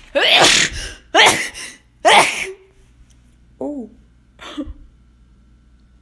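A young woman sneezing three times in quick succession, each sneeze a short loud burst. She follows them with a couple of brief, quieter voice sounds.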